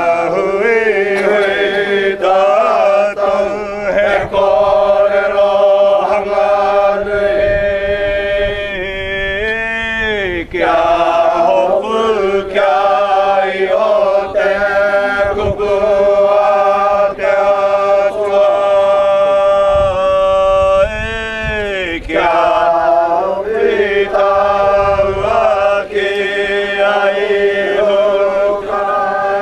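A group of young Māori men and women chanting in unison without accompaniment: long held notes, each phrase ending in a falling glide.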